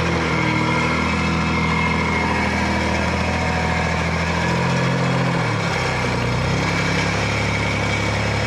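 Engine of a small earth-moving machine running at the trench, its engine speed dropping a step about five and a half seconds in.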